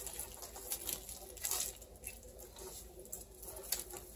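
Hands patting and rubbing seasoning into the skin of a raw spatchcocked turkey: faint, irregular soft pats and rubs.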